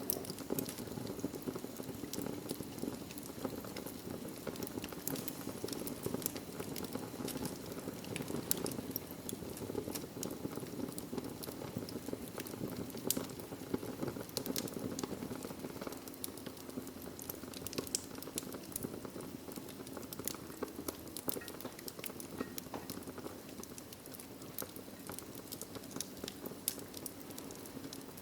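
Wood fire of burning logs in a fireplace, crackling steadily with many small pops over a low rushing hiss.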